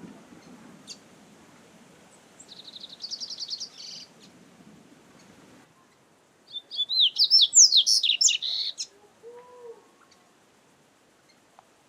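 Double-collared seedeater (coleiro) singing: a short, fast trill about three seconds in, then a louder, longer phrase of varied, sweeping whistled notes from about six and a half to nine seconds.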